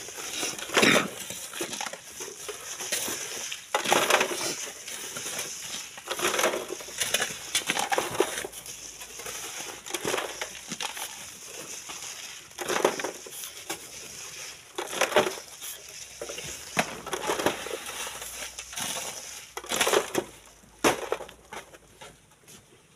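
Hand tools scraping and crunching into sand and gravel, in irregular strokes every one to three seconds, as sand is dug out by hand.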